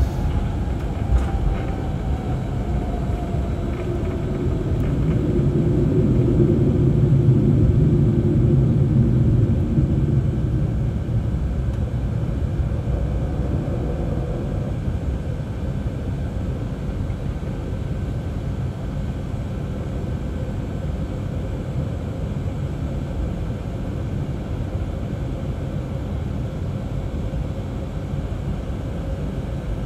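Jet airliner taxiing, heard from inside the cabin as a steady engine rumble. The rumble swells for a few seconds about five seconds in, while a faint whine slides down in pitch over the first several seconds.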